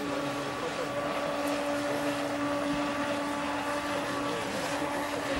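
Electric motor of a Thunder Tiger Desperado RC catamaran speedboat running, a steady whine that steps up in pitch right at the start and weakens about four seconds in, over a steady hiss.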